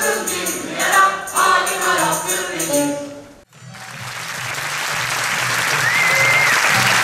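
Several voices singing a song over jingling percussion, which ends abruptly about three and a half seconds in. Audience applause then starts and swells, with a short whistle from the crowd near the end.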